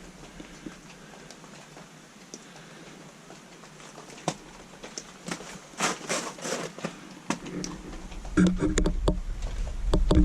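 Footsteps crunching over debris: scattered crunches and knocks, sparse at first and coming thicker and louder from about halfway in.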